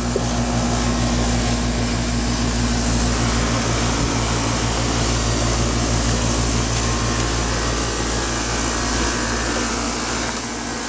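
2009 Payne 4-ton central air conditioner condensing unit running: its Copeland scroll compressor hums steadily under the even rush of air from the GE condenser fan.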